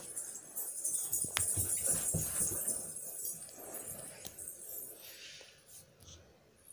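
Hot oil sizzling in a kadhai as battered ridge gourd slices are slid in to deep-fry, with a few light clicks and knocks from handling the pan and bowl. The sizzle is strongest early and gradually dies down.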